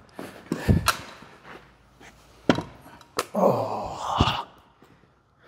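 Heavy thuds and knocks as a Mercedes-AMG 7-speed transmission is lowered and set down on a concrete floor. There is a deep thump under a second in, sharper knocks around two and a half and three seconds, and a rustling scrape ending in another low thump a little past four seconds.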